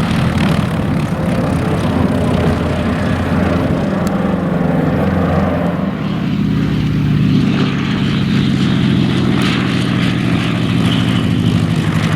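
Propeller-driven model airplane's engine running steadily, its pitch and level shifting slightly about halfway through.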